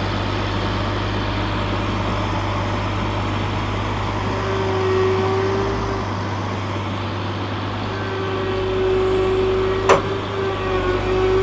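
Cat Challenger MT765C rubber-tracked tractor's diesel engine running with a steady low drone. A steady higher whine comes in about halfway, fades, and returns later. There is one sharp clank near the end.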